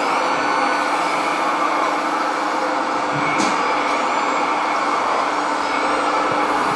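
Radio-controlled model construction trucks running: a steady whir of small motors and gears, with thin high whines that rise and fall as the machines change speed. A short click comes about halfway through.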